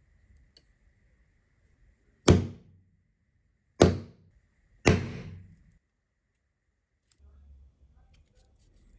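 Three sharp knocks of a hammer striking a hollow punch, driving it through a cork gasket disc on a cardboard backing. Near the end there is faint scratching as a craft knife trims the punched hole in the cork.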